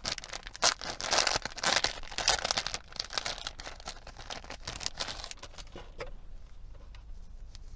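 Packaging crinkling and rustling as it is handled and searched through. Busiest in the first three seconds, then thinning out to a few scattered rustles.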